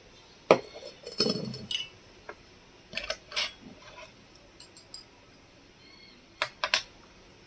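Small dishes or utensils clinking and knocking together as they are handled, in scattered bursts with a short metallic ring, the last a quick pair near the end.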